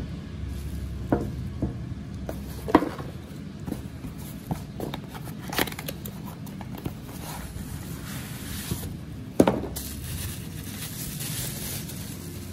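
Glass oil-dispenser bottles being handled and set down on a table: a few sharp knocks and clinks, the loudest about three seconds and nine seconds in, with a stretch of rustling packaging near the end.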